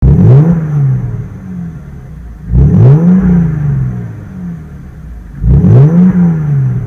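Exhaust of a 2014 Mercedes-Benz E350 Cabriolet's V6 engine, revved three times with quick throttle blips about three seconds apart. Each rev rises sharply and falls back to idle.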